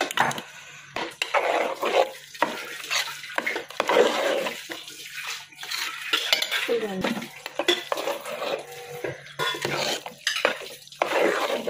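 Metal spoon stirring a thick, wet shredded-chicken stuffing in a large metal pot, scraping and clinking against the pot's sides and bottom in irregular strokes.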